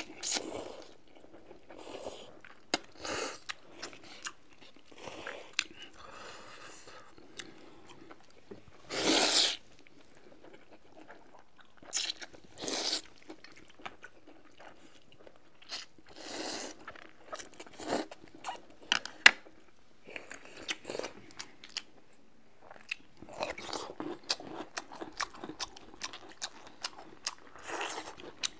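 Close-up eating sounds: noodles slurped off chopsticks in noisy pulls of up to about a second, with short wet chewing clicks between them that grow busier near the end.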